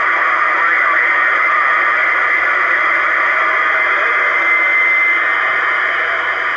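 Steady hiss of static from a freeband radio's speaker with the squelch open on a quiet channel, no station coming through. A brief faint whistle comes through about five seconds in.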